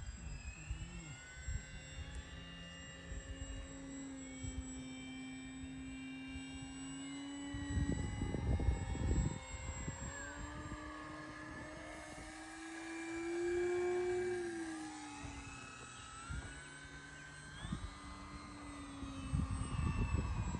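Electric motor and propeller of an E-flite Maule M-7 1.5 m RC plane humming in flight, the pitch rising and falling with throttle and distance and loudest about two-thirds of the way through as it passes close. Wind buffets the microphone about 8 seconds in and again near the end.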